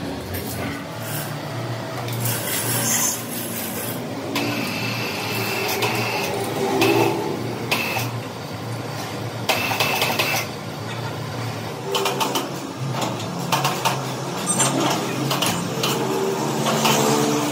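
Metalworking machine running with a steady low hum, overlaid by irregular metallic scraping and knocking.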